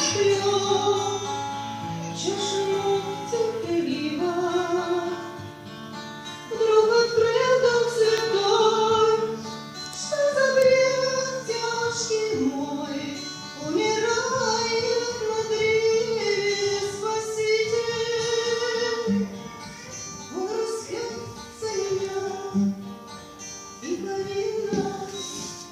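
Music: a woman singing a slow melody of long, sliding notes over plucked acoustic guitar.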